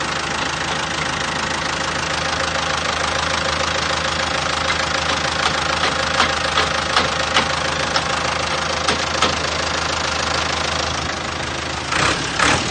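A heavy machine's engine running steadily, with scattered sharp clicks or knocks through the middle and a few louder knocks near the end.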